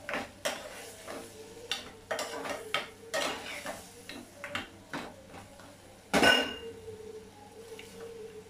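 Metal spoon stirring mutton pieces in masala in a pressure cooker pot, with repeated clinks and scrapes against the pot's sides. About six seconds in comes one loud metallic clang that rings briefly.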